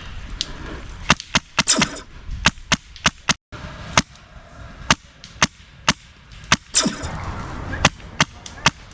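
Airsoft guns firing single shots: about twenty sharp cracks at uneven intervals, often two or three a second.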